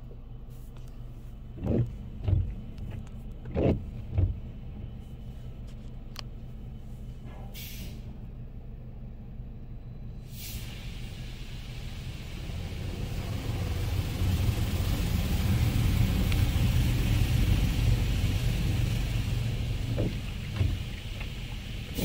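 DDI Robowash touchless car wash heard from inside the car: a steady low hum of the wash machinery with a few dull thumps in the first few seconds. From about ten seconds in, high-pressure water spray hisses and drums on the car's body and windshield, building to its loudest midway and easing near the end.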